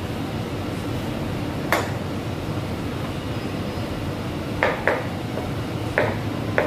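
Commercial kitchen clatter: about five sharp clinks of dishes or metal utensils, two of them close together midway, over a steady low rumble of kitchen equipment.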